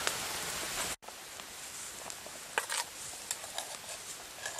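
An even hiss that cuts off suddenly about a second in, followed by a few light, scattered clicks and taps over faint background noise.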